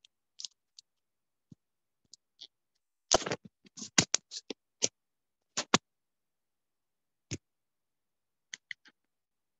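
Handling noise from a phone being set up: scattered clicks, taps and scrapes, coming thickest in a run about a third of the way in, with a few more near the end and silence between.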